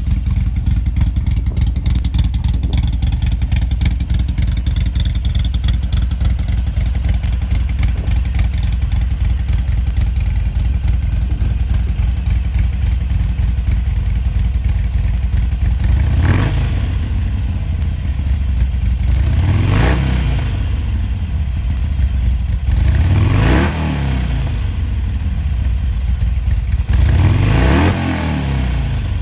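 2013 Harley-Davidson Iron 883's air-cooled V-twin with a D&D aftermarket exhaust, idling steadily in neutral. In the second half it is revved four times, each blip rising in pitch and dropping back to idle.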